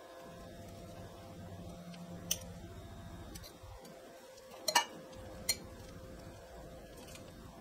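Knife tapping against a glass measuring jug as chunks of shea butter are pushed in: a few sharp clicks, with a quick double click a little past halfway and one more just after.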